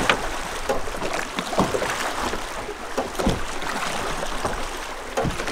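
Drift boat being rowed through river riffles: oar strokes splashing and knocking roughly every one and a half to two seconds over a steady rush of moving water.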